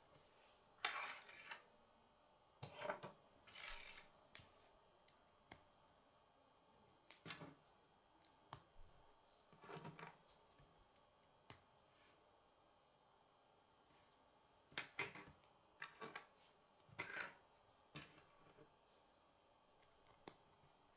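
Plastic K'nex pieces clicking and clattering as they are handled, snapped together and set down on a wooden table, in irregular bursts of sharp clicks with short rustles between them.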